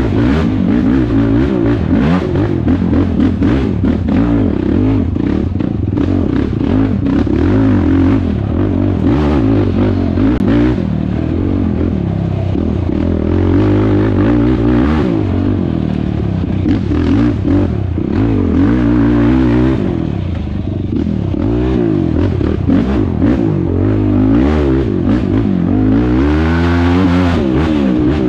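Sport quad (ATV) engine ridden hard, revving up and down over and over as the throttle is worked, easing briefly about two-thirds of the way through. Clatter and knocks from the machine bouncing over rough ground run beneath it.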